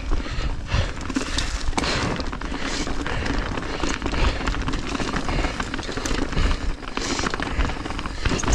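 Mountain bike tyres rolling fast over dry leaf-covered dirt singletrack, leaves crackling, with the bike rattling over bumps. Wind buffets the helmet microphone as a low rumble.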